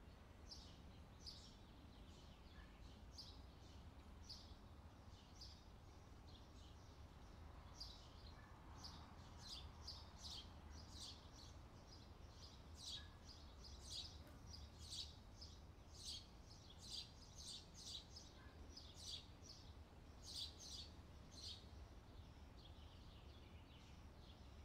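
Faint bird chirping: many short, high chirps that come thicker through the middle and later part, over a low steady hum.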